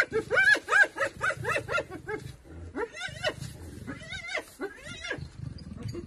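Spotted hyena giggling: rapid runs of short, high yelps, each rising and falling in pitch, about four a second, pausing just after two seconds and returning in shorter runs. This is the hyena's nervous, submissive call as a leopard contests its food.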